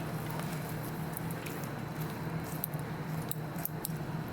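Handling noises as a preserved dog cadaver specimen is moved: scattered small clicks and rustles over a steady low hum.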